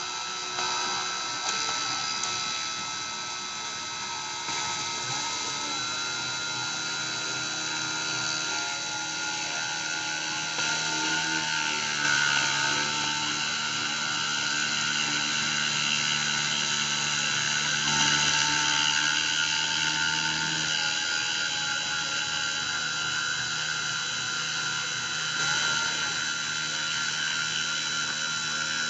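Dremel rotary tool spinning at high speed in a homemade CNC router, milling a pattern into acrylic, a steady high-pitched whine. Underneath it run the machine's stepper motors, with lower tones that shift pitch every few seconds as the G-code moves the axes.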